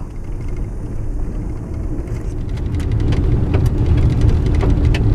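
Car driving on a gravel road, heard from inside the cabin: a steady low rumble of tyres and engine, with small stones ticking against the car, the ticks coming thicker from about two seconds in.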